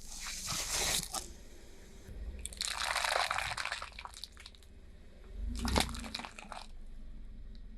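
Objects being crushed under a car tyre: three bursts of crunching and crackling with some wet squishing.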